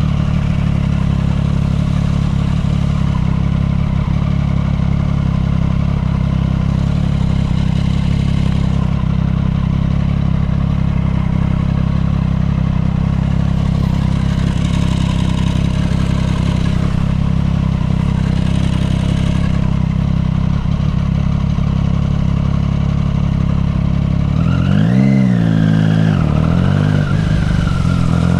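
Triumph Street Triple 675R's inline three-cylinder engine idling steadily at a stop, then revving up and down near the end as the bike pulls away and accelerates.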